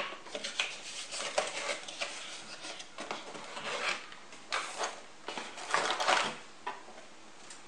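Cardboard box flaps being opened and a boxed CPU cooler lifted out of it: scattered rustling, scraping and light knocks, busiest a little past the middle.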